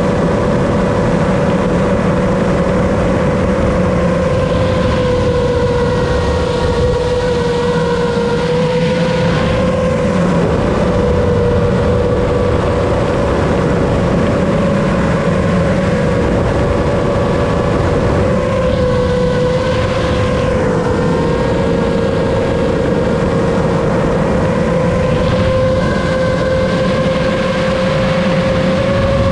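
A 7-inch long-range FPV quadcopter's motors and propellers whining steadily in flight, heard from the onboard camera, the pitch wavering slightly as the throttle shifts. A few brief swells of rushing hiss come and go.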